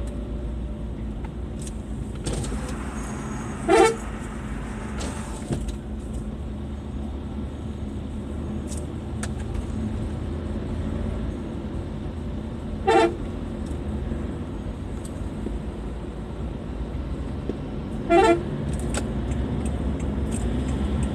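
A Toyota Fortuner's telolet horn sounding three short blasts, about four seconds in, near the middle and again some five seconds later, over steady road and engine noise.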